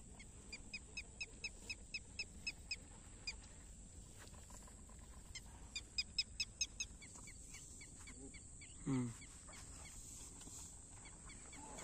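A bird calling faintly in two quick runs of short, high chirps, about four a second, followed by a few falling chirps, with one lower falling call about nine seconds in.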